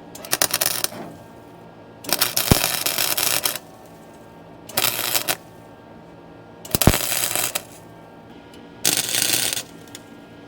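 Electric welder arc crackling in five short bursts, each lasting about half a second to a second and a half, as seams in a car's floor pan are stitch-welded from underneath.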